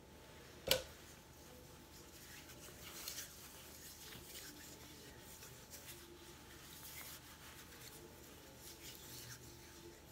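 Hands rubbing in freshly applied hand cream: faint, irregular soft rubbing and rustling of skin on skin. A single sharp click comes a little under a second in and is the loudest sound.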